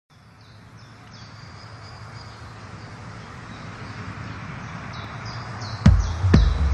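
Background music intro: a swelling hiss with high, falling chirps repeating a little more than twice a second, then a loud heavy beat coming in near the end, about two thumps a second.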